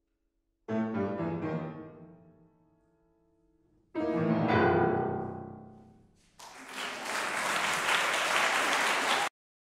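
Grand piano sounding its closing chords: two loud chords about three seconds apart, each left to ring and die away. About six seconds in, audience applause starts and then cuts off suddenly near the end.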